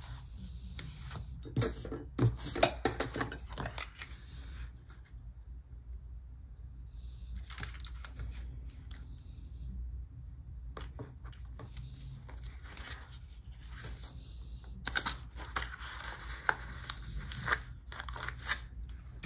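Scissors snipping paper in two runs of short cuts, about two seconds in and again near the end, with quieter paper handling between.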